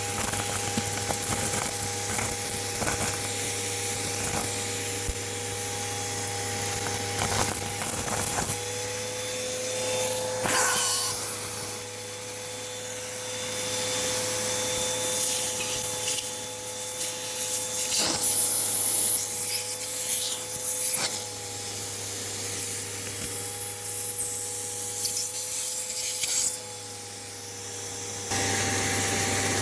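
Hoover Elite Rewind Plus upright vacuum cleaner running: a steady motor whine under rushing suction and rubbing noise that swells and falls as it works, with a few small clicks, dropping for a moment near the end.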